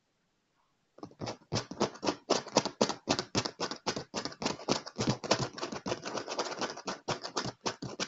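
Fingers and fingernails rapidly tapping and scratching on a leather chair arm, about five or six strokes a second. It starts about a second in and stops abruptly at the end.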